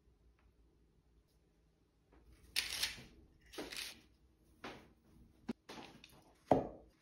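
Linen cloth rustling in several short swishes as it is lifted and shaken. Near the end comes a sharper soft thump.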